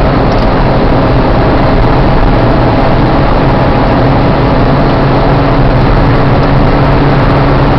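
A car driving at a steady speed, heard from inside the cabin: a steady engine hum under constant tyre and road noise.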